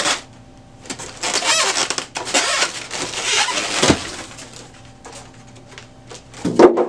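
Plastic wrap and styrofoam packing being pulled off a new printer: crinkling and rustling, with a knock about four seconds in and a louder bump near the end.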